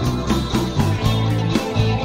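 Rock music: a drum kit played live along to a drumless band recording of guitars and bass, with a steady beat of drum and cymbal strikes about four a second over sustained bass notes.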